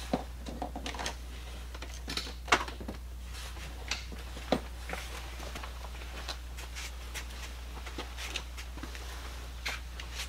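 Hands rummaging through loose items in a bin: scattered light clicks and knocks of objects against one another, with a few sharper knocks in the first half, over a low steady hum.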